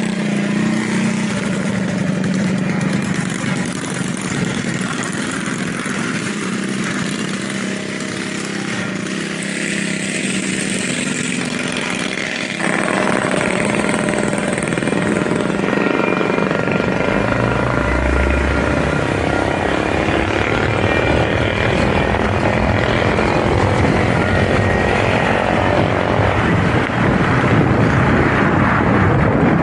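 Small mini bike engines running, growing louder about 13 seconds in as several engine pitches rise and waver together.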